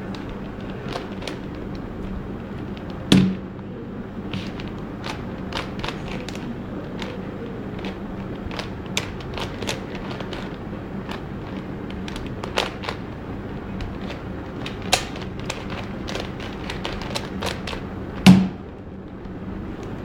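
Rubik's Cube being turned by hand: irregular sharp plastic clicks, one or two a second, over a steady low hum, with two louder thumps, about three seconds in and near the end.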